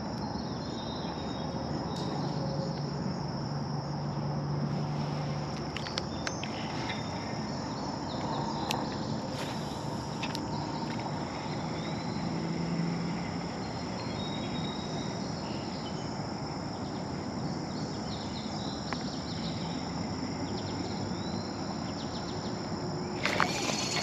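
Insects trilling steadily at dusk, a high, even tone over a low outdoor hiss, with a few faint clicks. A brief louder noise comes in near the end.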